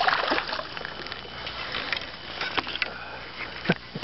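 Hooked bass being reeled in at the surface beside a boat: splashy hiss with irregular clicks and knocks of tackle handling. The loudest knock comes near the end.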